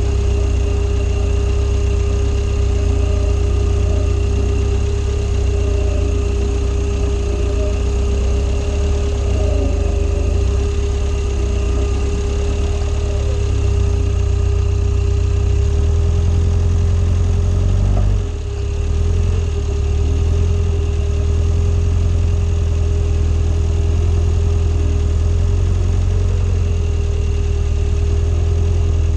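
Swamp buggy's engine running steadily close up as the buggy crawls on its big low-pressure tyres, a deep engine note with a constant whine above it. The sound dips briefly about two-thirds of the way through.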